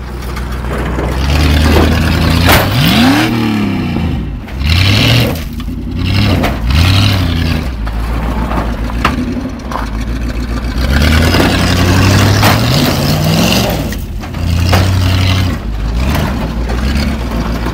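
Demolition derby car's engine revving hard over and over, its pitch climbing and dropping, with scattered knocks and clatter.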